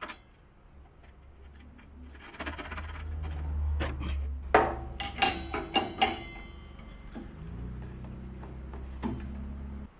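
Metallic clinks and clanks of a table saw blade change, as the 10-inch blade and its tools are handled: a quick run of sharp clicks a little past halfway and one more near the end. Under them runs a low steady hum that cuts off suddenly just before the end.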